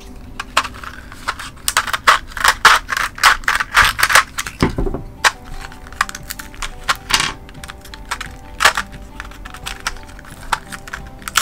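Crinkling plastic packaging and small metal D-rings clicking and clinking as they are handled and taken out of the pack, busiest in the first half, with fainter clicks later. Soft background music runs underneath.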